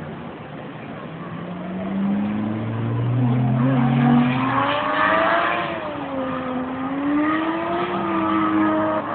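Drift car's engine revving, its pitch climbing and falling as the throttle is worked, with tyre squeal, loudest about halfway through.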